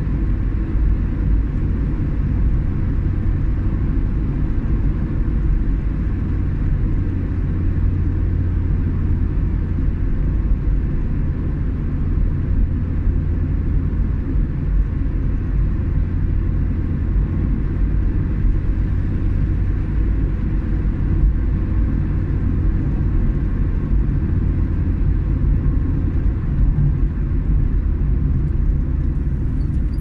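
Car driving at steady road speed, heard from inside the cabin: a constant low rumble of engine and tyre noise.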